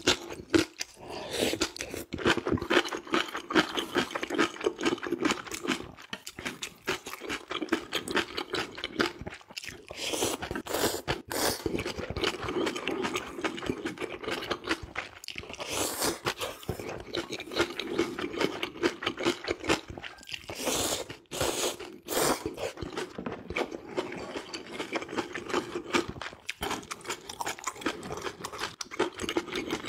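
Close-miked mukbang eating: steady, fast chewing and mouth smacking on ramyeon noodles, fried dumplings and kimchi. There are a few louder slurps along the way.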